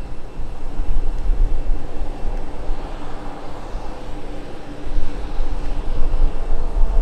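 Small twin-engine business jet's turbofans running at approach power as it comes in to land, a steady jet rush with faint whining tones. Heavy gusty rumble from wind on the microphone.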